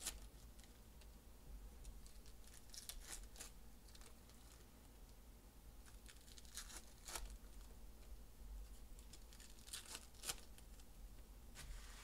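Faint swishes of trading cards being slid off and laid onto a stack, one by one. The short swishes come mostly in pairs, about every three seconds.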